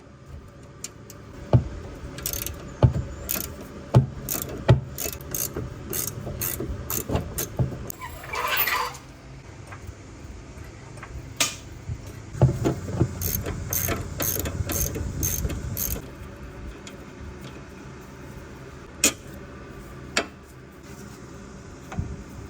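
Ratchet wrench clicking in rows of strokes, about two a second, with sharp metallic clunks, working on a car's sway bar link nuts. There are two runs of this, a brief hiss between them, and a few lone clicks later.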